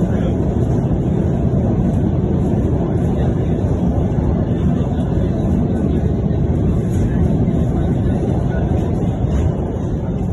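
Russian suburban electric train (elektrichka) running, a loud steady noise with no single knock standing out.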